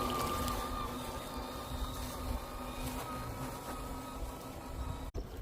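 MJX H8H RC crawler's brushless electric motor and metal geared drivetrain whining steadily as it crawls over rocks, with a low rumble under it; the whine eases off after about three seconds.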